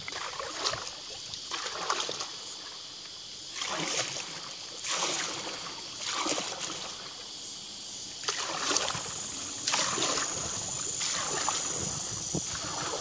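Wooden canoe paddle strokes in creek water: a splash and wash of water about every second or so, unevenly spaced, with water dripping off the blade between strokes.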